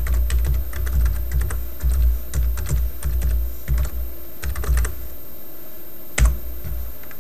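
Typing on a computer keyboard: a quick run of key clicks for about five seconds, then a pause and one single louder keystroke about six seconds in.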